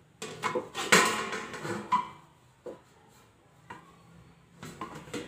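Steel plates clattering and scraping against a kadhai, with a short metallic ring about two seconds in, then a few lighter knocks.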